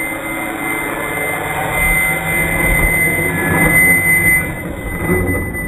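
Scratch-built RC J-20 model jet's motor running with a steady high whine as the plane rolls along the asphalt, growing louder as it nears and easing a little after.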